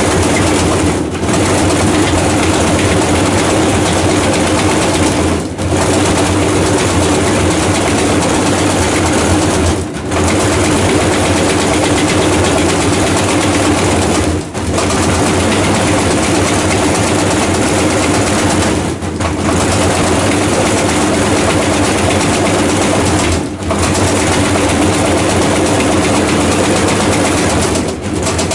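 Washing machine running with a loud, steady roar and hum, dipping briefly about every four and a half seconds.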